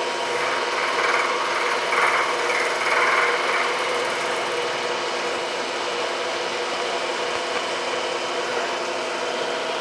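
Milling machine running with its cutter taking a cut about 30 thousandths deep to mill a flat on a brass part. A brighter rasping cutting sound comes over the steady hum of the machine in the first few seconds, then eases back to the steady running.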